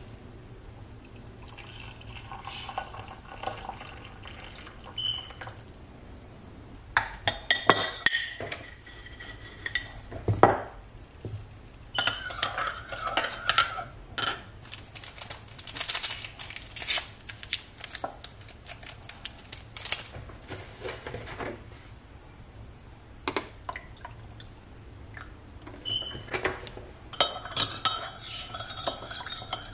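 Spoon clinking against a ceramic coffee mug and the mug knocking on the counter as coffee is made and stirred. Scattered sharp clinks come from about seven seconds in, turning to quick repeated clinking of a spoon stirring in the mug near the end.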